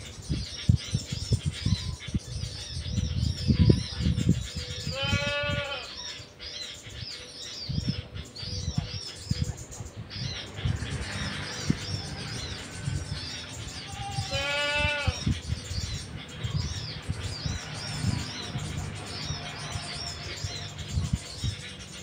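Small birds chirping in the trees, with short quick notes repeating throughout. About 5 and 14 seconds in come two longer, drawn-out animal calls of about a second each. Low rumbling thumps run underneath.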